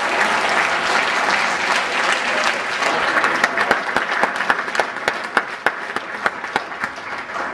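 Audience applause, dense at first, then thinning into scattered separate claps that die away near the end.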